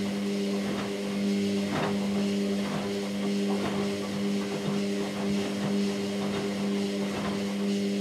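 Front-loading washing machine mid-wash: a steady motor hum under irregular sloshing as the drum tumbles a load of wet microfibre towels.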